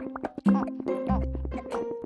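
Cartoon background music: short plucked notes over a bass line, with a held bass note entering about a second in.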